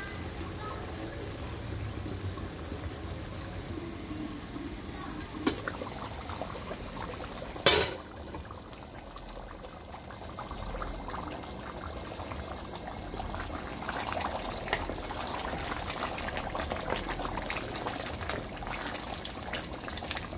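Beef curry boiling hard in a pot, the meat bubbling in the water it has released, with one sharp click about eight seconds in.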